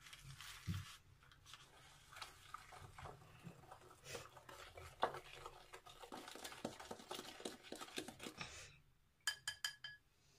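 A hand whisk stirring and scraping in a bowl of beaten eggs, lemon juice and sugar, giving a dense run of irregular clicks and scrapes. About nine seconds in, a brief run of short high-pitched beeps.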